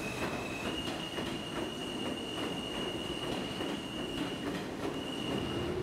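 New York City subway train running on the elevated tracks, its wheels giving a steady high squeal that stops near the end, over a rapid, regular clacking of wheels on the rails, about four clacks a second.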